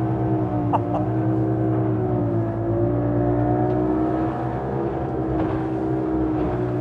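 Outboard motor of a wooden motorboat running hard through tight high-speed turns, a steady engine note whose pitch wavers slightly up and down.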